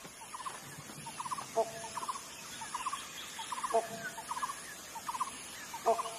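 Wild animal calls: short, rapid rattling calls repeating every second or less, with a lower call about every two seconds.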